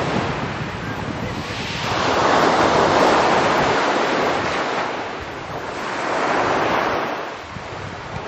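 Sea surf washing up a pebble beach right at the shoreline, swelling and fading in surges about every three to four seconds.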